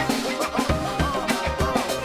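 Background music with a steady drum beat and a melody line.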